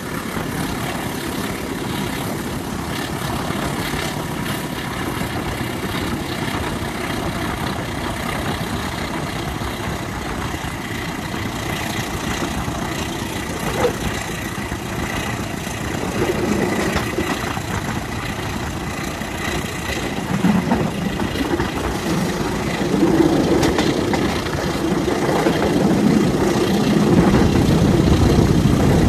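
Diesel-hauled passenger train in motion: a continuous rumble of wheels on rail mixed with the CC203 diesel-electric locomotive's engine. It grows louder in the last several seconds.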